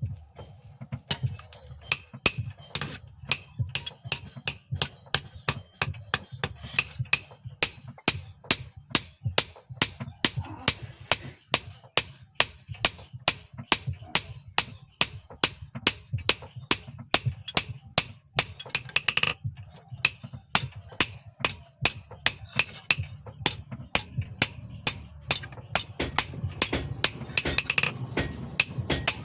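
Hand hammer striking steel on an anvil in regular blows, about two a second with a ringing clink, as a file is forged into a knife blade. The blows pause briefly about two-thirds of the way through, and a steady low hum runs underneath.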